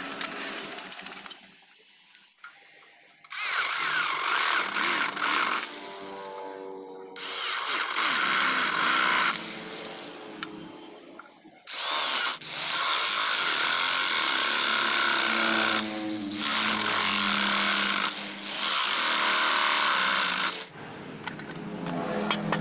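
Electric drill boring holes through a wooden board, in three runs of a few seconds each. The last run is the longest.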